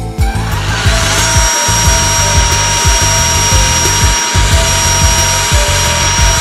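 Electric power drill starting about a second in and running at a steady speed with a high motor whine, boring a 1.5 to 2 mm hole through hardened epoxy; it stops right at the end. Background music plays throughout.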